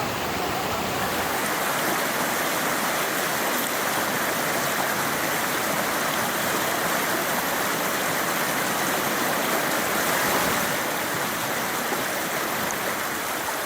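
Creek water rushing and splashing steadily over rocks.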